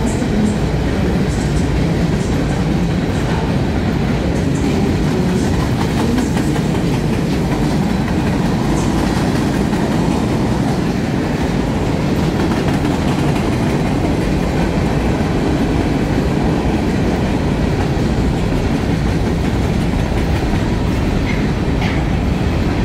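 Freight train of covered hoppers and centerbeam flatcars rolling past steadily, the continuous sound of its wheels on the rails.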